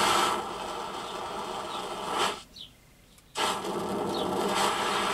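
Optimus 8R petrol stove's burner running with a steady rushing hiss. The hiss cuts out for about a second midway and then comes back.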